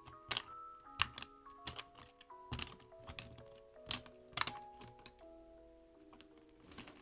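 Sharp, irregularly spaced clacks of plastic keycaps on a mechanical keyboard, about ten in the first five seconds and one more near the end, over soft background music.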